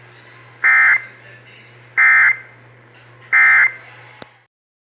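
Emergency Alert System end-of-message code: three short, identical bursts of buzzing digital data tones about a second and a half apart, over a steady low hum, marking the end of the alert. A click, then the audio cuts off suddenly near the end.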